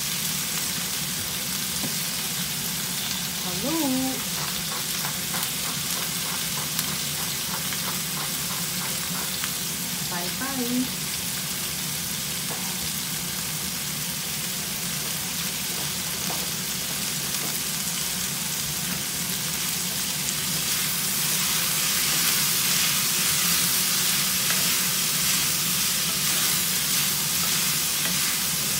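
Long beans and mushrooms sizzling steadily as they fry in a pan, the sizzle growing a little louder in the last third.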